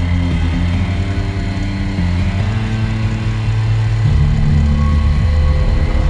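Background music: a low, droning line whose bass notes step to a new pitch every second or two.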